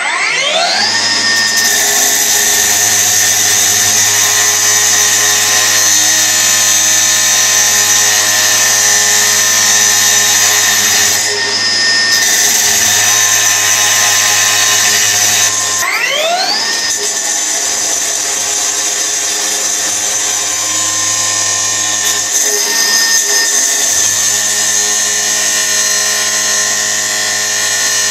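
Milwaukee M18 FUEL 9-inch cordless brushless cut-off saw spinning up with a rising whine and cutting through a rusty steel T-post with its steel-cutting blade, a loud, steady high whine with grinding noise. About halfway through, the motor briefly winds down and spins back up with a second rising whine before it cuts on.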